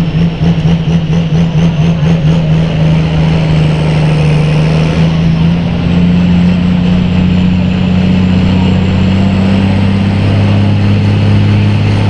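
Farm tractor engine running loud and steady, with a throbbing pulse in the first few seconds and a pitch that creeps up slightly about halfway through.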